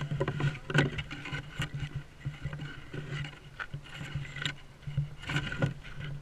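Rubbing, scraping and small knocks of a camera against clothing as the wearer walks, with footsteps in an uneven beat of a little over one a second.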